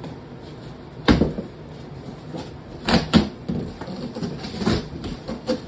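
Large cardboard shipping box being opened and unpacked by hand: a series of thumps, knocks and rustles from the flaps and packing, the loudest about a second in and two close together near three seconds in, with lighter handling noises after.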